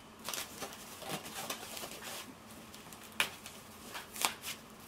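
Packaging being handled: a bag and foam packing rustling and crinkling, with a few sharp crackles about three seconds in and twice more near the end.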